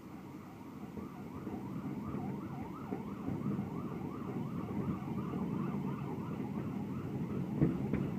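An emergency vehicle's siren in a fast yelp, rising and falling about three times a second, starting about a second in and fading near the end, over a steady low rumble. A single sharp firework bang comes near the end.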